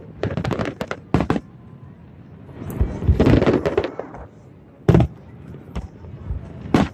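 Fireworks going off: a quick run of cracks in the first second, then single sharp bangs. A longer noisy rush of crackling sits in the middle, and a last loud bang comes near the end.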